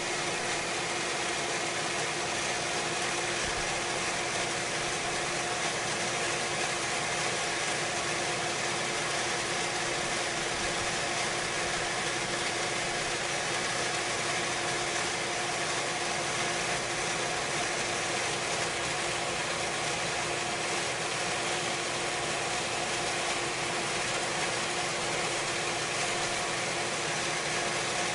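Swimming pool pump running steadily: an even motor hum with a rushing noise from the pump and water flow.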